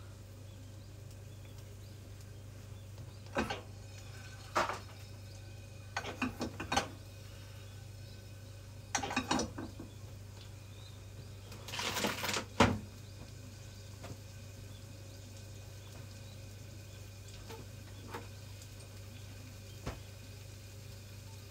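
Kitchen utensils and cookware being handled: short clatters and knocks in a few clusters over the first half, then a few faint taps, over a steady low hum.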